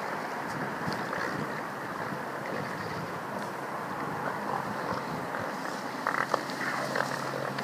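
Steady rush of wind on the microphone mixed with surf on a rocky shore. A few brief louder sounds come about six seconds in.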